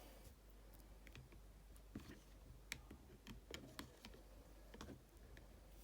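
Near silence with a few faint, scattered small clicks and taps from handling a small plastic toy.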